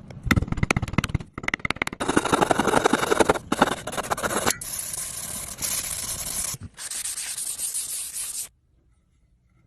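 Abrasive rubbing on wood, like sanding: a quick run of short strokes at first, then longer stretches of rough hiss with brief breaks, stopping suddenly about a second before the end.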